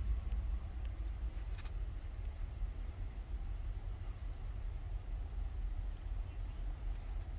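Insects chirring with a steady high-pitched trill, over a low, steady rumble.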